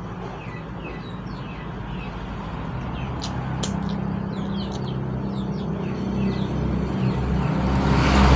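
A motor vehicle's engine hum growing louder as it approaches, loudest near the end, over small birds chirping throughout. A few sharp clicks come a little past three seconds in.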